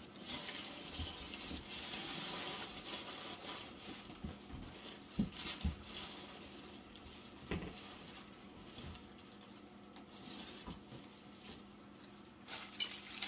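Rustling and a few soft knocks from someone moving about and handling things in a small room, then a quick cluster of sharper clicks near the end.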